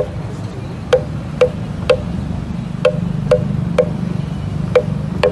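Protest noise: a hard, ringing knock struck again and again in a steady pattern of three beats about half a second apart, over a continuous low hum.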